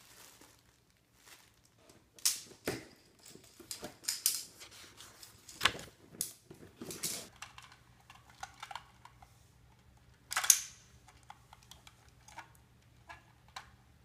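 Thin clear plastic packaging crackling and snapping as a cat plays in it. After about seven seconds come scattered clicks of Magformers magnetic plastic tiles snapping together, with one loud snap about ten seconds in.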